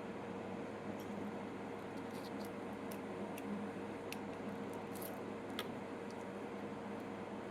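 Faint, scattered small clicks and ticks from handling the parts of an oil-filled RC car shock being taken apart, over a steady background hum.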